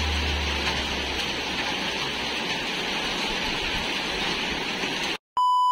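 Steady rain falling on trees and paving, an even hiss. Near the end it cuts off abruptly and a steady electronic beep tone starts.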